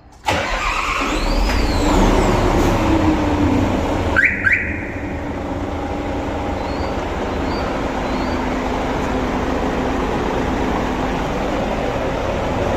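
Hyundai Xcient Pro truck's diesel engine starting suddenly, as by remote start, then running steadily at idle. Two short rising chirps sound about four seconds in.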